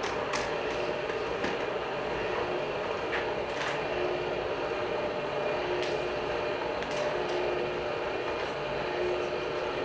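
Motorised projection screen rolling up, its electric motor giving a steady hum with a few light clicks from the mechanism.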